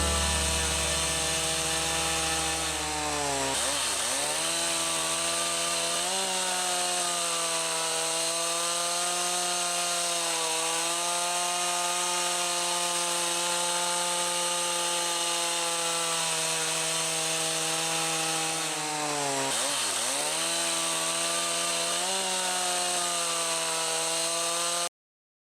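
Chainsaw engine running at high revs in a steady whine; twice the revs dip sharply and climb straight back up. The sound cuts off abruptly near the end.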